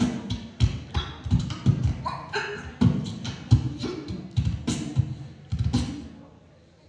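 Beatboxing into a microphone: a rhythmic beat of bass-drum-like thumps and sharp snare-like hits, about three strokes a second, which stops about six seconds in.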